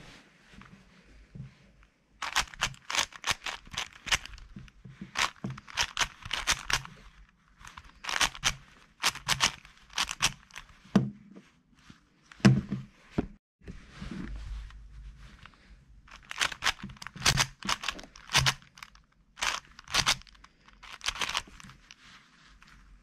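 Stickerless 4x4 speed cube being turned by hand: runs of rapid plastic clicking and clacking as the layers turn, broken by short pauses between sequences of turns.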